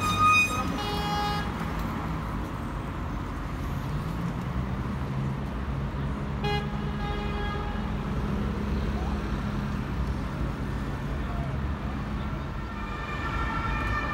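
Night-time city street traffic: engines running steadily close by, with a car horn sounding briefly at the start and again about six seconds in. Near the end a siren starts up.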